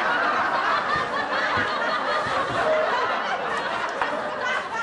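Many people laughing at once, a sitcom laugh track, holding at a steady level.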